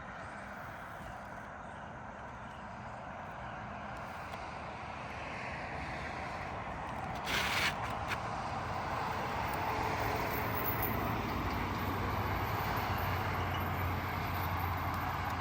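Steady outdoor background noise with a low engine-like rumble from a motor vehicle that grows louder through the second half, and one short, sharp noise about halfway in.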